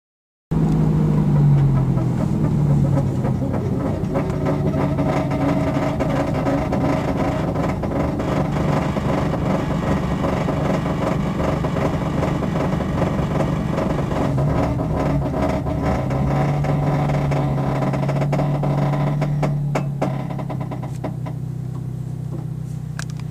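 A vehicle engine running steadily, recorded to show an abnormal noise. It drops somewhat in level about twenty seconds in, with a few sharp clicks near the end.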